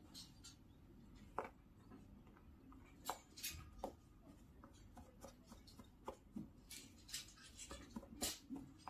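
Faint, irregular scratching and scuffing of a ragdoll cat clawing, biting and bunny-kicking a knitted ball toy on a tile floor, growing busier in the second half.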